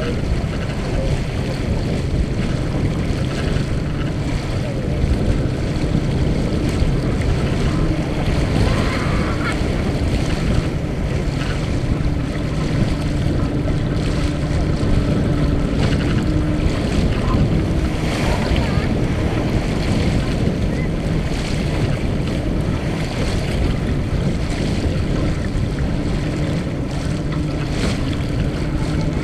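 Wind buffeting the microphone over water rushing and splashing along the hull of a Mumm 36 racing sailboat under sail, with a faint steady hum underneath.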